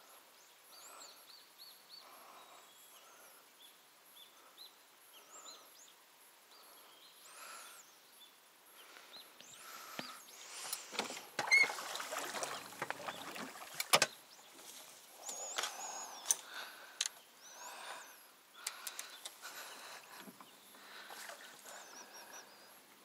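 Fishing gear being handled in a small plastic boat: rustling and clatter, with two sharp knocks against the hull about two and a half seconds apart near the middle. Faint high bird chirps come and go.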